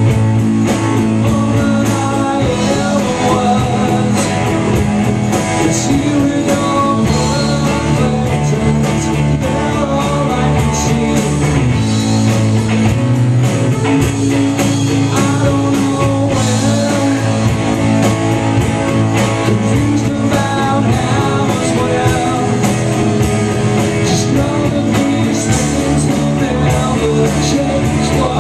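Live rock band playing amplified electric guitars and drums, loud and steady, heard from among the audience in a small venue.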